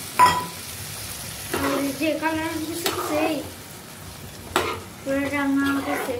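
Steel ladle stirring a simmering chickpea curry in a metal kadai. There is a sharp clink of metal on metal at the start and two more later, and two long, squeaky scrapes of the ladle across the pan.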